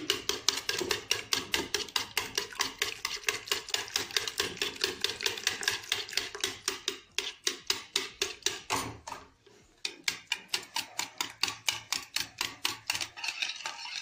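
Small wire whisk beating an egg-and-milk custard mixture in a plastic bowl, the wires clicking against the bowl in rapid, even strokes, about five a second. The beating stops briefly about nine seconds in, then starts again.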